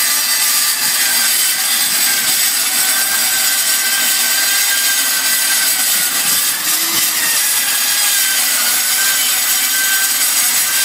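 Milwaukee 6370-21 13-amp 8-inch metal-cutting circular saw cutting through metal: a loud, steady hissing cut with a thin whine that wavers slightly in pitch.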